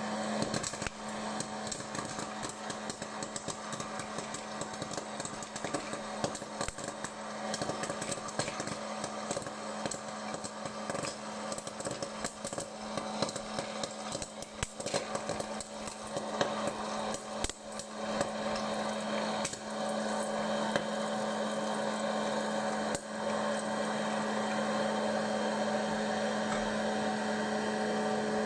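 Suntec Wellness hot-air popcorn maker running: its fan motor hums steadily while kernels pop and rattle in the hot-air chamber, a dense stream of sharp clicks that thins out over the last few seconds as the batch finishes.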